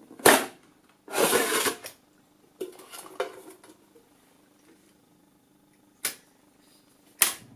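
Aircraft instrument chassis being slid out of its sheet-metal case on a workbench. A sharp metal knock comes first, then a scrape of about a second as the chassis slides out. Lighter rattles follow, and two more knocks come near the end, the last one loud.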